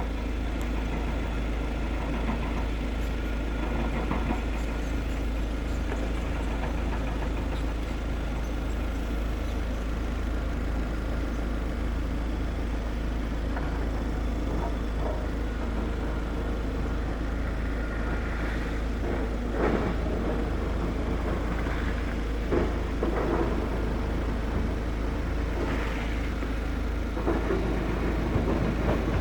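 Heavy diesel earthmoving machinery running steadily during hill cutting, with a constant low rumble. Several short knocks come in the last ten seconds or so.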